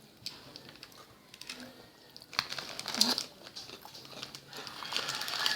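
Crinkling of a plastic snack packet being handled, in irregular bursts that are louder about two and a half to three seconds in.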